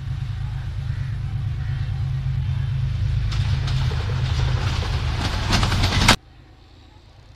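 Diesel passenger train approaching and passing close: a low engine rumble grows louder, then from about three seconds in the wheels clatter over the rails, loudest just before the sound cuts off abruptly about six seconds in, leaving only a faint distant rumble.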